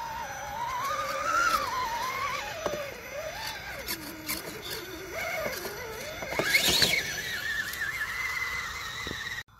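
Brushless motor and drivetrain of a 1.9 Axial Wraith RC rock crawler whining, the pitch rising and falling with throttle as it crawls over rocks, with a brief louder burst of noise about two-thirds through. The sound cuts off suddenly near the end.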